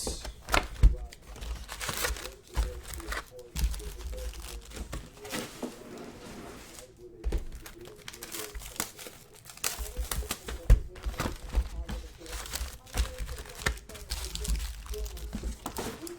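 Plastic card-pack wrappers crinkling and tearing as trading card packs are ripped open and handled, an irregular run of crackles and rustles.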